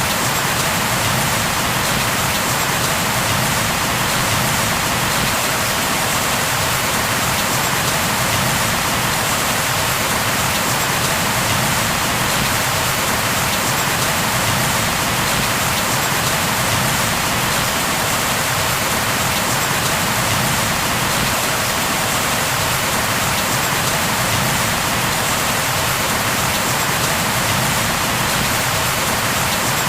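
Steady rain falling and pattering on a surface, an even hiss without thunder or separate drops standing out.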